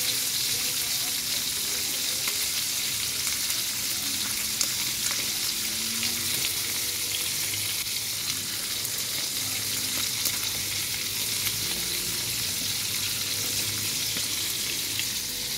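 Whole fish shallow-frying in hot oil in a wok: a steady sizzling hiss with small scattered pops.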